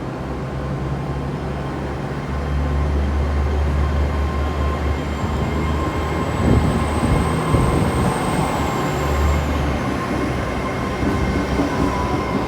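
GWR Class 800 bi-mode train pulling out under diesel power: its underfloor engines make a steady low drone that grows louder about two seconds in. A thin high whine rises, then falls away in the middle of the sound.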